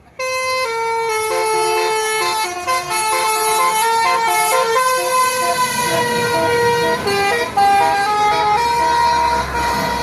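Bus telolet horn, a Basuri multi-trumpet musical air horn, blaring a tune: several tones at once that switch pitch every fraction of a second, starting suddenly and running loud without a break.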